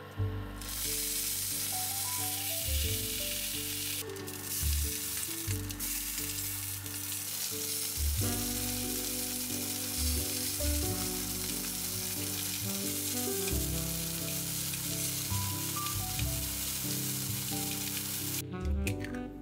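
Sausages sizzling in hot oil as they fry in a small rectangular pan with broccoli and cherry tomatoes. The sizzling starts about half a second in, dips briefly around four seconds, and cuts off about a second before the end, over soft background music.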